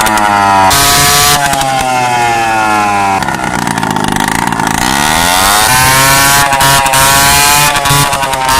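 Piaggio Free two-stroke scooter engine being revved, its pitch repeatedly climbing and falling away. It drops to a low speed around three to five seconds in, then climbs again.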